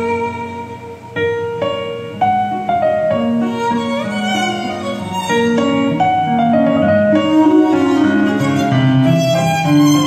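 Instrumental classical-style music: a bowed violin melody of sustained, stepping notes over a lower string accompaniment.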